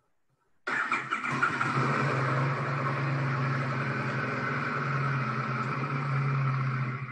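Motorcycle engine idling steadily as it warms up, coming in abruptly about a second in and holding an even, unchanging note, with no revs, until it drops away just before the end.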